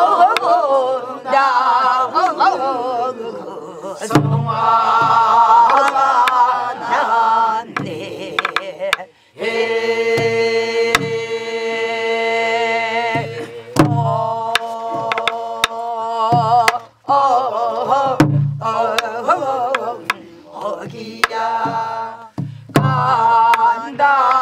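Namdo folk singing (namdochang) in a strongly shaken, wavering voice, with a long held note near the middle and other voices joining at times. It is accompanied by strokes of a Korean barrel drum (buk): sharp stick clicks and a few low thuds.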